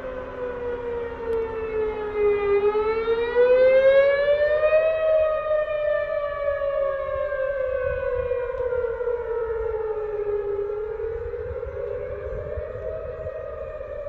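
Outdoor tornado warning siren wailing, its pitch sweeping slowly down and back up in long swells several seconds apart, loudest about four seconds in. A second, lower steady tone drops away about three seconds in.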